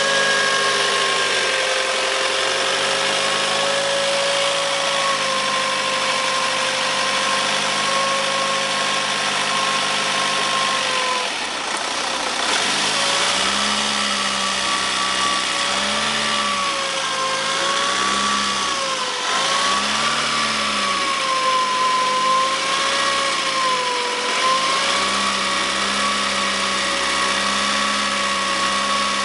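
Ford Focus TDCi 115 diesel engine running at raised revs, first held steady and then blipped up and down several times, with a steady high-pitched whine-like tone riding on top that wavers with the revs. This is the owner's odd "duck" noise, which appears only with the engine warm and above about 1500 rpm and has survived replacement of the flywheel, clutch, timing belt, water pump, accessory belt tensioner and turbo.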